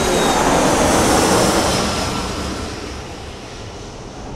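Rushing jet-airliner noise, loudest in the first two seconds, then fading away.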